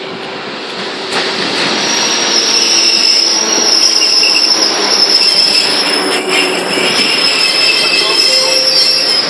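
Koleje Mazowieckie electric multiple unit running into the platform and braking, with a loud high-pitched squeal from brakes and wheels over the rumble of the wheels on the rails. The squeal builds about a second and a half in and stops abruptly near the end.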